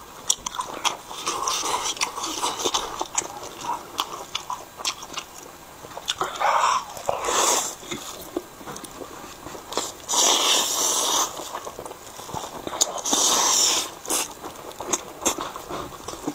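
Close-up eating sounds: wet chewing and lip smacks of a man eating fried noodles and grilled sausage, with three long slurps of noodles, the first about six seconds in.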